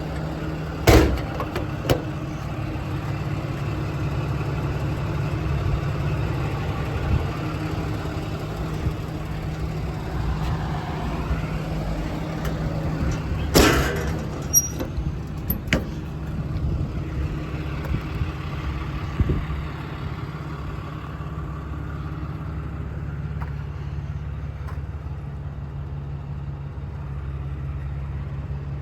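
A Dodge Ram 5500's 6.7 Cummins diesel idling steadily, with a few sharp knocks about a second and two seconds in and a louder one about halfway through.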